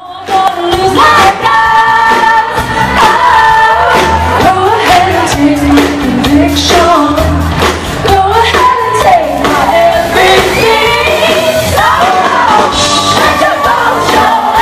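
Live band playing a song with a woman singing lead into a microphone, heard from within the audience.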